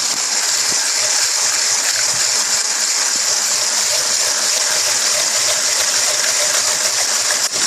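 Electric mixer running steadily as it whips egg whites into a stiff foam, with a loud, even whirring and beating whir.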